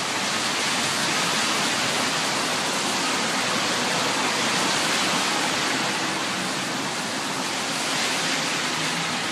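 Heavy rain pouring down: a loud, steady rush of water.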